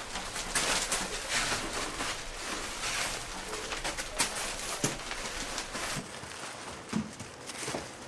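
Plastic bags crinkling and rustling with irregular crackles as salt is packed into them by hand.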